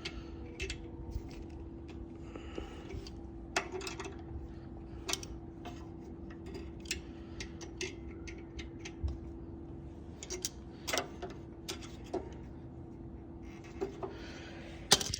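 Scattered clicks and light metal clinks of pliers gripping and turning small fittings on a go-kart engine, over a steady faint hum that stops near the end.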